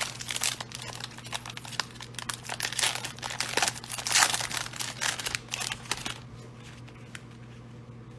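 Foil-lined plastic wrapper of a Donruss football card fat pack being torn open and crinkled, a dense crackling that dies down about six seconds in as the cards are slid out.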